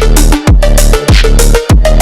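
Loud electronic background music with heavy bass, a sustained bassline and a steady beat of about two hits a second.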